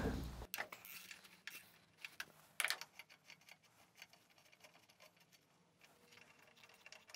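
Faint, irregular clicks and taps of a ratchet wrench and socket being worked to unscrew the nut on top of an engine mount, with a small cluster of clicks about two and a half seconds in.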